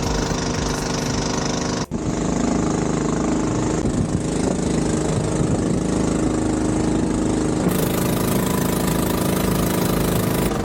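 Longtail boat engine running steadily at an even pitch, with a brief dropout about two seconds in.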